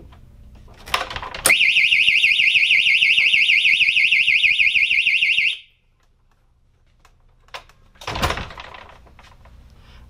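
A 102 dB piezo siren sounds a loud, rapid up-and-down warble for about four seconds, then cuts off abruptly. It has been tripped because opening the door pulled the sheet of paper out of the clothes-pin switch and closed the circuit. A short clatter comes just before the siren, and a brief noise comes near the end.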